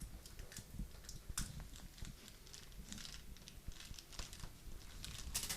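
Faint rustling and scattered light clicks of things being handled, with a louder rustle near the end.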